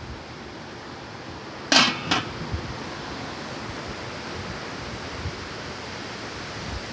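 A metal cooking pot clinking twice, about half a second apart, close to two seconds in, over a steady hiss.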